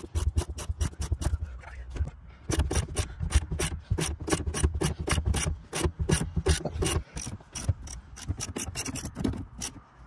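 Hand ratchet wrench clicking rapidly and evenly, about five clicks a second, as a seat-mounting bolt is turned out. The run breaks off briefly about two seconds in and again near seven seconds.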